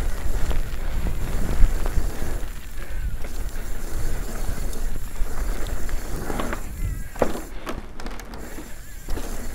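Steel hardtail mountain bike ridden fast over a dirt jump line: tyres rolling on packed dirt and the bike rattling over the rollers, under a steady rushing noise, with the wheels running onto a wooden ramp deck near the end.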